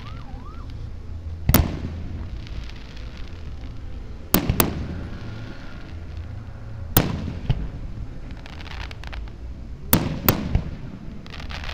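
Aerial firework shells bursting overhead: about seven sharp bangs, a few seconds apart and sometimes in quick pairs, each trailing off in a short rumbling echo.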